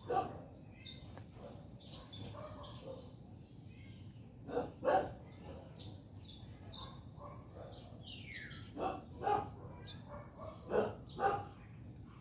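A dog barking in short barks, mostly in pairs, a few times, with small birds chirping throughout.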